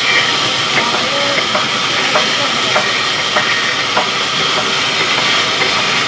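Large sawmill band saw cutting a mango log: a loud, steady hiss of blade through wood, with a faint tick repeating a little less than twice a second.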